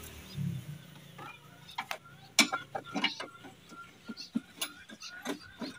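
Irregular sharp metallic clicks and taps as pliers grip and work the thin steel linkage rod of a car door-lock actuator inside the open door shell, the loudest about halfway through.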